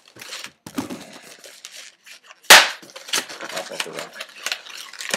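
Latex twisting balloons squeaking and rubbing against each other as they are twisted and wrapped, with one sharp loud crack about two and a half seconds in.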